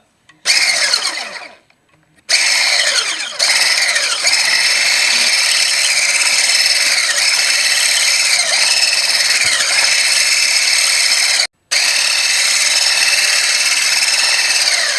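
Electric mixer beating batter: a loud, steady high motor whine whose pitch dips now and then as the beaters drag in the thick batter. It starts with a short burst, runs continuously with one brief stop, and winds down at the end.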